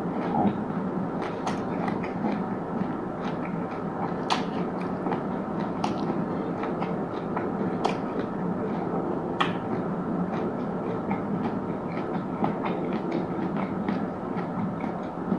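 Close-miked chewing of food: a steady, dense mouth noise with sharp crunches every second or two.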